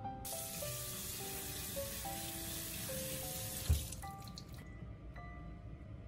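Kitchen tap running water through a stainless steel colander of leafy greens into a sink as they are rinsed; the water stops about four seconds in, with a low thump just before it stops.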